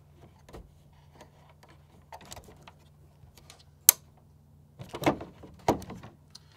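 Plastic clicks and rustling as a split-core current transformer is handled and closed around a service conductor, with one sharp snap about four seconds in as its latch is pushed shut.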